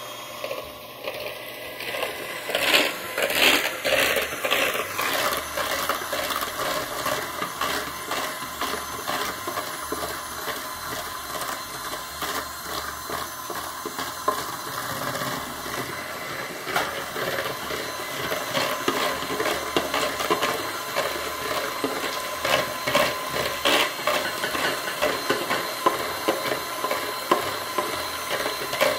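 Handheld electric mixer running steadily, beating eggs and sugar until light and frothy, with light clinks from a wire whisk stirring in a glass bowl.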